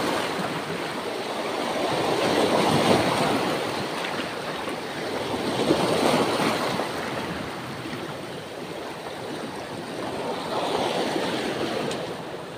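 Sea waves washing and surging over shoreline rocks, swelling and fading every few seconds.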